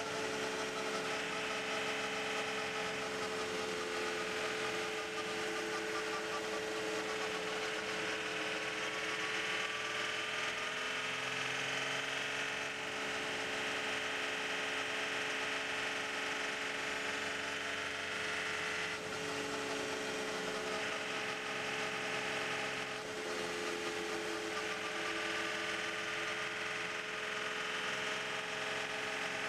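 Cockpit sound of the Audi R18 e-tron quattro's V6 turbodiesel cruising slowly at low revs: a steady drone with a constant whine over it, rising and falling only gently in pitch.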